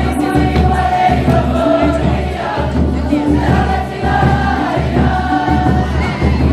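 Group of students singing a Cook Islands action song in unison, over a steady drum beat.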